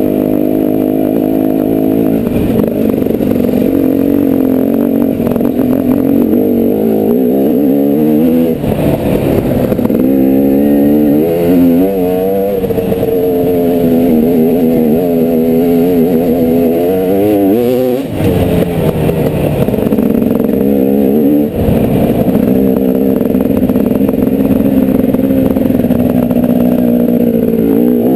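Dirt bike engine running under load, its pitch rising and falling over and over as the throttle is worked, with a few brief drop-offs where the engine note dips before picking up again.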